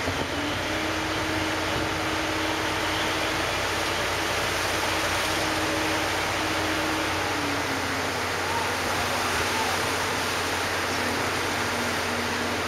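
Steady rushing noise and a low engine hum aboard a car ferry as it comes alongside the terminal ramp. The engine's faint tone steps up about half a second in and drops back down about seven and a half seconds in.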